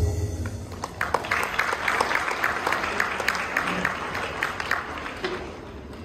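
Audience clapping, starting about a second in after the choir's last chord dies away, and thinning out near the end.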